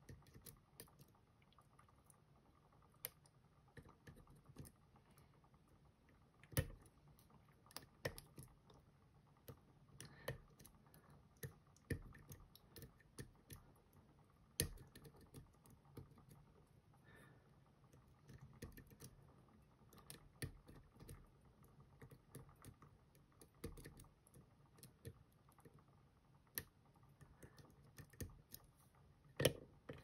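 Faint, irregular small metal clicks and taps from a thin pick pressing the pins of a Van Lock padlock, a tubular-style lock, while C-clip pliers hold its core under tension. A few clicks stand out louder, about six and a half, eight, fourteen and a half seconds in and near the end.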